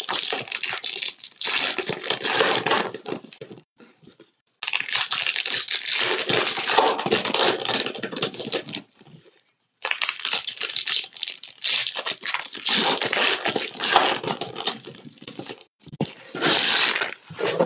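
Foil and plastic trading-card wrappers crinkling and tearing as they are opened and handled by hand, in four long stretches with short pauses between them.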